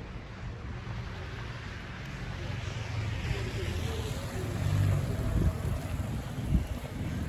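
A vehicle passing on a snowy street, its tyres hissing through wet snow, swelling to a peak about three seconds in and fading, over a low rumble of wind on the microphone.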